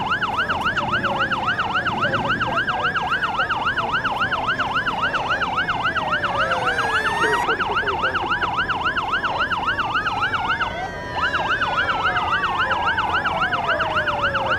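Fire engine sirens sounding together: a fast yelp, about three sweeps a second, with slower wails rising and falling over it. The yelp breaks off for a moment about two-thirds of the way through.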